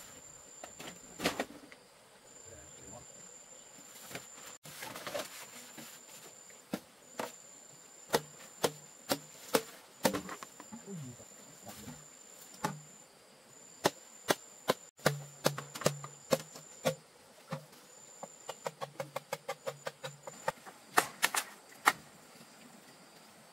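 A run of sharp knocks, irregular at first, then a quick series of about four a second around three quarters of the way through. Behind them a high-pitched insect trill keeps starting and stopping.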